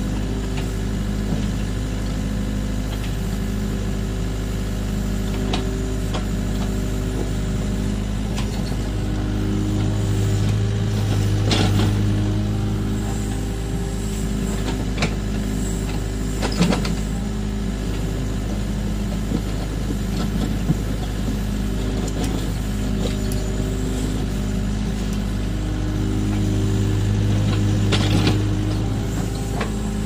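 LiuGong hydraulic excavator's diesel engine running steadily as it works the bucket through a shallow cut, the engine note swelling twice under hydraulic load. A few sharp knocks come through.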